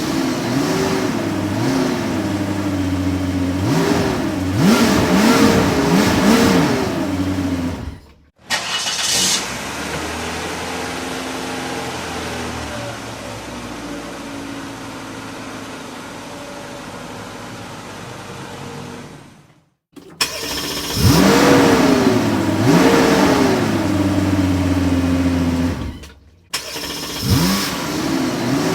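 Car engine revved repeatedly, its pitch rising and falling with each blip, then running steadily for about ten seconds, then revved again. The sound drops out briefly three times between takes.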